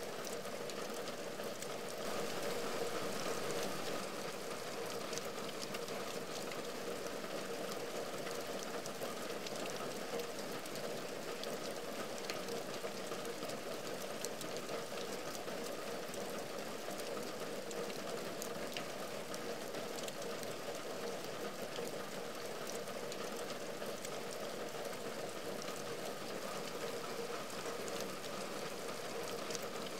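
Rain falling on a window and the ledge outside it: an even hiss of rain full of small, separate drop ticks, briefly a little louder about two seconds in.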